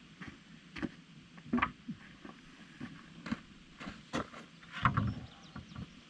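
Irregular sharp knocks and clicks, about half a dozen scattered over six seconds, the loudest about one and a half seconds and five seconds in, over a faint steady hiss.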